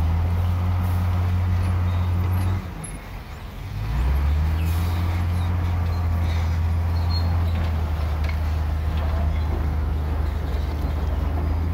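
Heavy diesel engine of construction machinery running with a deep, steady drone. It drops away about two and a half seconds in and comes back a second or so later.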